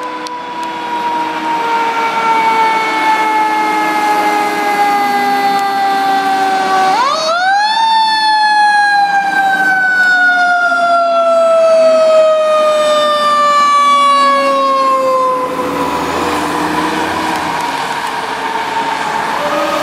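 A fire engine's Federal Q2B mechanical siren coasts down in pitch, is spun up with a sharp rising wail about seven seconds in, then winds slowly down again. Near the end the truck's low engine rumble comes in as it passes, and the siren is spun up once more.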